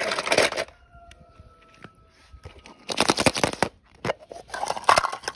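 Small toy cars clattering against each other in a plastic bucket as a hand rummages through them: three short bursts of rapid clicking and rattling, one at the start, one about three seconds in and one near the end.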